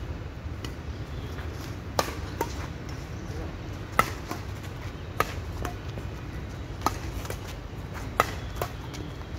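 A shuttlecock struck back and forth by badminton racquets during a doubles rally: five sharp hits, one every one to two seconds, each followed by a fainter click.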